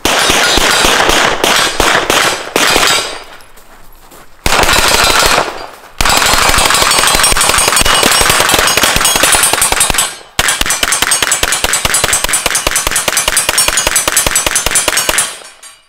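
Rapid strings of shots from AR-style carbines, fired fast and close together, broken by a short lull about three seconds in and a brief stop about ten seconds in.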